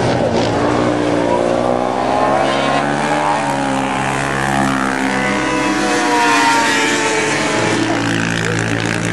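Yamaha Raptor quad's single-cylinder four-stroke engine revving as it races around the dirt oval and passes close by about four seconds in, its pitch rising and falling.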